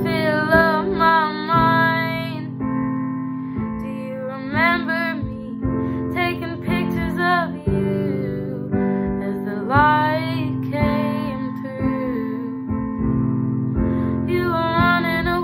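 A young woman singing a slow song in phrases of a couple of seconds, her voice rising and falling, over a steady strummed guitar accompaniment.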